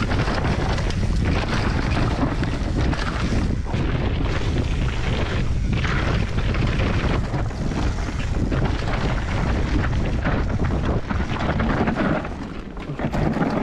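Wind buffeting the microphone and tyres rumbling over rough ground as a mountain bike, the Orange 324 downhill bike, is ridden at speed on a trail, with steady rushing and many small knocks and rattles.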